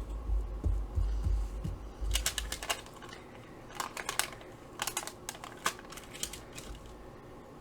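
Paper being handled: tissue paper crinkling in short clusters of sharp crackles as tags are pressed onto it by hand, with a few soft bumps in the first two seconds.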